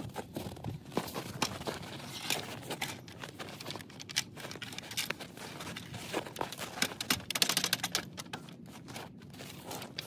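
Clanks, scrapes and crunching as a steel hydraulic floor jack is slid into place under a small crawler bulldozer, with a dense rattle about seven and a half seconds in.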